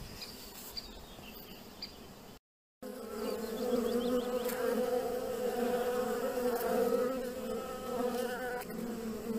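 Honeybees buzzing close to the microphone, a steady drone. Before it, about two and a half seconds in, a brief drop-out to silence cuts off a fainter outdoor background.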